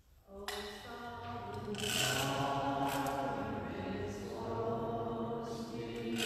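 Voices singing a slow, chant-like hymn in long held notes, starting about half a second in.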